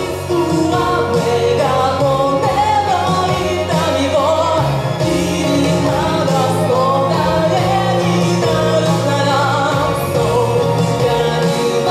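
A solo voice singing a Japanese pop song into a microphone over a recorded backing track; the accompaniment fills out in the low end about halfway through.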